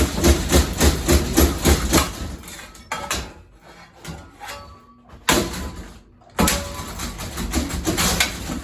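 A shovel striking a ceiling-mounted fan: a fast run of metal blows, about three or four a second, for the first two seconds, then quieter rattling and more irregular bangs from about five seconds in.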